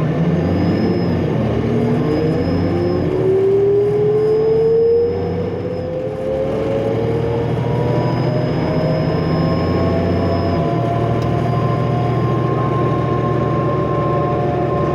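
A Cummins ISL diesel bus engine pulls under acceleration, and its turbocharger whine climbs steadily in pitch. About five seconds in, the drone dips briefly as the ZF automatic transmission shifts gear, then the engine pulls on with the whine still rising.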